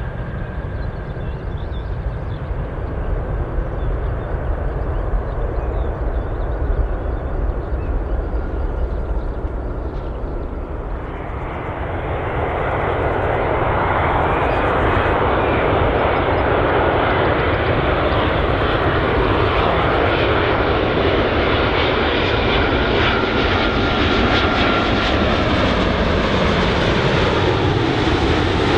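Jet airliner noise throughout. For the first 11 seconds or so it is the low rumble of a twin-engine widebody rolling out on the runway after touchdown. Then it changes to the louder, steady rush of a Boeing 787-8's twin jet engines on final approach, with a faint high whine over the roar, growing louder and holding.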